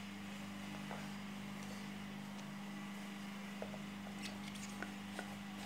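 A steady low hum, with a few faint light clicks in the second half as hands toss chopped unripe mango pieces in a plastic bowl.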